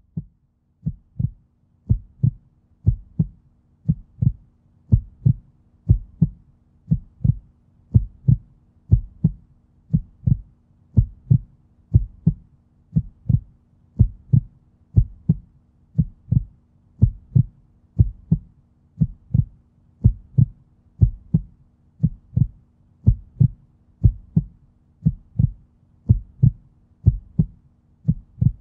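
Heartbeat sound effect: low paired thumps, about one beat a second, over a steady low hum.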